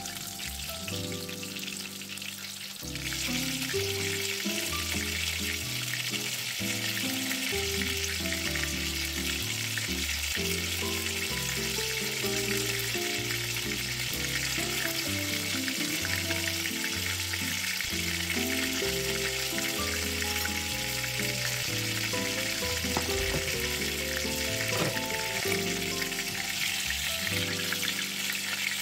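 Breaded pork cutlets sizzling as they shallow-fry in hot oil in a stainless steel pan, a steady hiss that gets louder about three seconds in. Background music plays throughout.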